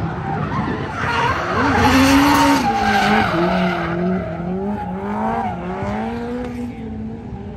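A drift car's engine revving high, its pitch wavering up and down as the throttle is worked. The tyres skid with a loud hiss from about one to three seconds in.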